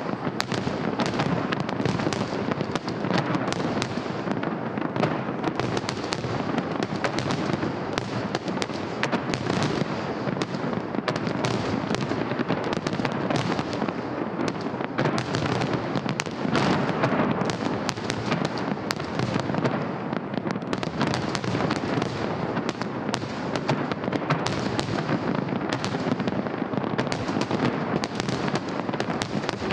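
Festive fireworks salute going off continuously: many overlapping bangs and crackles with no pause.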